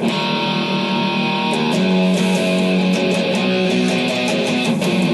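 Guitar music starts abruptly: strummed guitar chords with a steady rhythm of strokes, the opening of a song.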